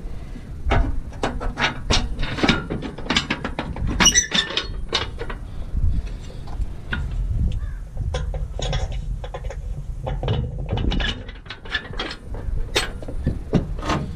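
Steel snowmobile tilt trailer's tongue and frame being worked by hand right at the microphone: a long run of metal clanks, knocks and rattles over a low rumble.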